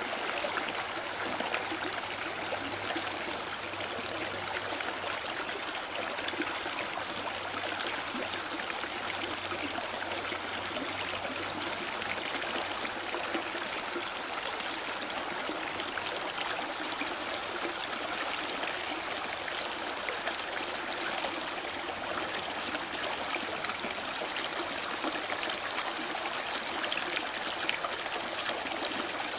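Shallow rocky stream running steadily over and between stones.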